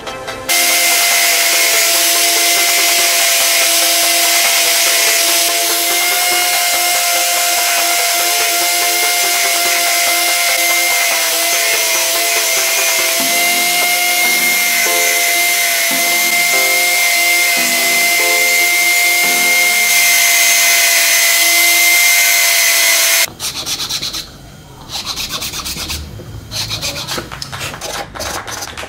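A glued plastic recoil-starter pulley is rubbed on a concrete floor to sand its face flat, making a loud, continuous scraping that cuts off suddenly about 23 seconds in. Quieter, irregular scraping strokes follow near the end.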